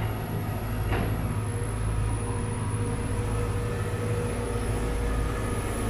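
Sumitomo SH210 long-reach excavator's diesel engine running steadily under load, with a steady whine, as the boom lifts a bucketful of dredged river mud. A faint clank about a second in.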